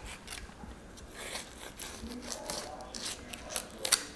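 Fillet knife cutting through a sheepshead's rib bones and scaly skin on a wooden cutting board: a string of short crackling clicks and scrapes, with a sharper click near the end.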